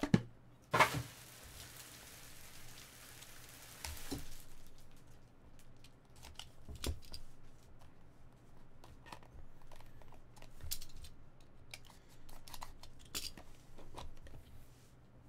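Trading card box packaging being opened and cards handled: a couple of sharp clicks near the start, a ripping, crinkling hiss for about three seconds, then scattered light clicks and rustles of cards and wrapping.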